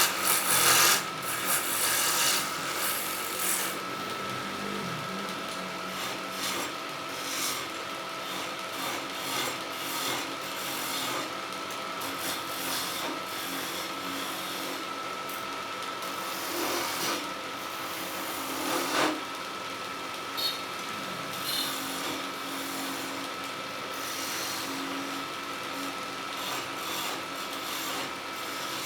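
Wood lathe running with a steady motor whine while a tool works the spinning wood, making a continuous scraping, rasping hiss. The cutting is heaviest in the first few seconds, then eases to a lighter, even scrape with a couple of brief harder scrapes later on.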